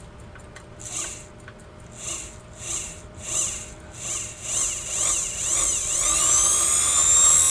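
Sewing machine motor on a foot-pedal speed control whining in short pulses about every half-second or so, then held on from about six seconds in, its pitch rising as it speeds up. It is driving a watchmaker's lathe countershaft through a leather belt.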